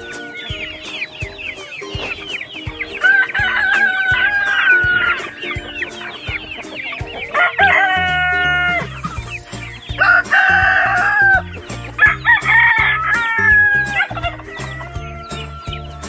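A flock of free-range native chickens: roosters crow several times over steady clucking and peeping from the flock. Background music with a steady beat plays underneath.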